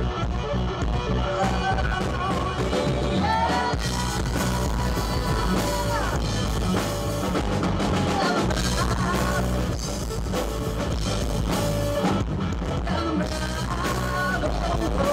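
A rock band playing live, the drum kit keeping the beat under the guitars and bass, with a bending melody line on top.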